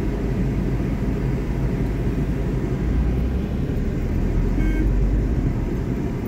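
Steady low rumble of a car's engine and road noise heard from inside the cabin while driving in town traffic, growing a little stronger in the middle.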